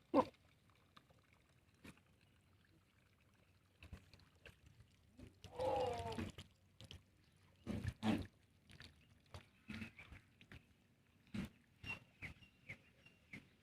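A goat bleating once, a short wavering call about halfway through, amid scattered short knocks and scuffs.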